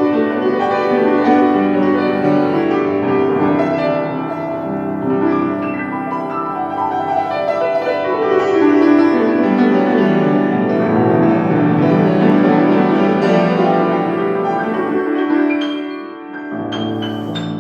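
Solo piano playing a full, sustained passage with the pedal held. A long descending run sweeps down through the middle. The sound thins briefly near the end before new, cleanly struck notes come in.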